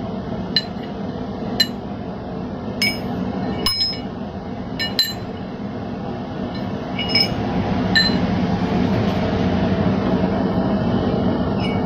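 Steel blacksmithing tools clinking against the steel guillotine tool and anvil as a handheld slitter is handled and laid down: about nine light, ringing metallic clinks at irregular intervals, over a steady low hum.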